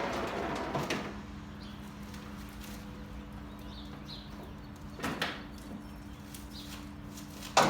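Unboxing handling noises: a rustle in the first second, then two sharp knocks, the second louder and near the end, over a steady low hum.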